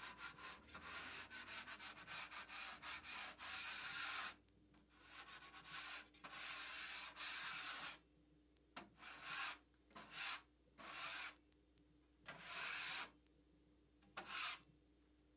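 Steel drywall knife scraping dried joint compound off a wall to take down ridges and tracks left from the last coat. It starts with a quick run of short strokes, moves to two longer strokes, then continues with shorter strokes spaced a second or so apart.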